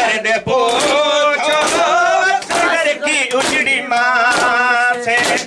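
Men chanting a Muharram lament (noha), with hands slapping bare chests in time, sharp slaps a little under a second apart.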